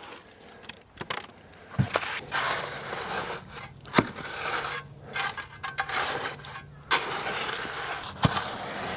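Freshly mixed wet concrete being scraped and dumped out, with irregular scraping and several sharp knocks of tools. A steady low hum starts about two seconds in.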